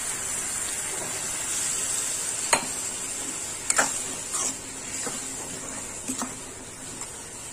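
Pav bhaji masala sizzling in a hot pan with a little water just added, a steady frying hiss. A spatula stirs through it, knocking sharply against the pan four times.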